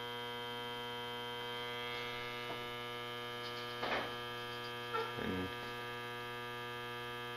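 H-10 refrigerant leak detector humming steadily: a buzzy tone with many overtones while it samples for a freon leak at an evaporator coil.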